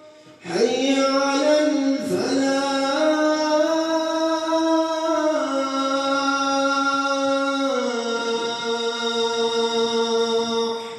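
A male muezzin chanting the adhan, the Islamic call to prayer, unaccompanied. One long phrase starts about half a second in, with held notes that step down in pitch twice, and fades away near the end.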